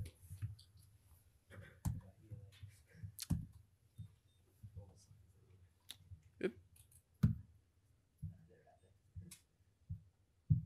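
Irregular clicks and knocks of a laptop being worked at a lectern, with a few heavier thumps among them.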